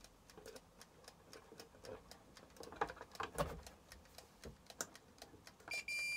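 Faint irregular ticking and a couple of soft knocks, then near the end a multimeter's continuity beeper starts a steady high beep as the probes find a closed circuit through the air fryer's thermostat.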